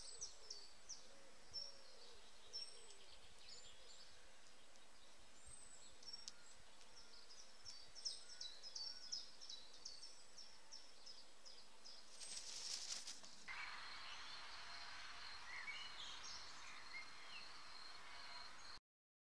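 Faint garden birdsong: small songbirds chirping with many quick, high notes over a steady background hiss. A brief rustle comes about twelve seconds in, and soon after a steady high whine joins the background.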